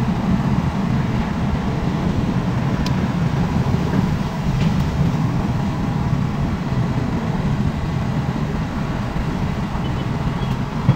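SANY tracked excavator's diesel engine running steadily while it digs and swings loads of soil, with two faint clicks a few seconds in.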